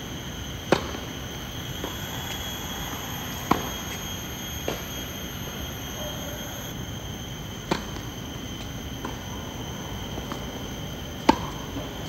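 Tennis balls struck with rackets during rallies: sharp single pops several seconds apart, the first a serve hit less than a second in, the loudest near the end. A steady high whine runs underneath.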